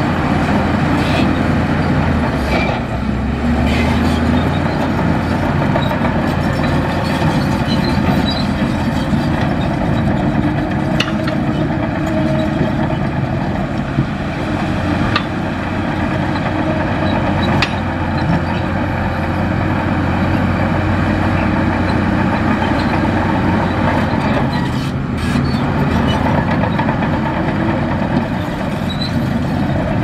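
Heavy diesel earthmoving machinery running steadily, with a few sharp clanks scattered through it.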